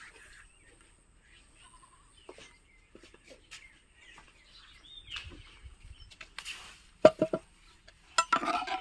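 Stainless-steel dog bowl clinking sharply a few times against concrete as it is set down, with faint bird chirps and a short pitched sound just before the end.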